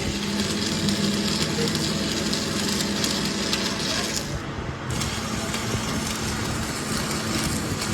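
Steady crackling hiss of workshop metalwork over a low hum. The crackle breaks off briefly a little past four seconds in, then resumes.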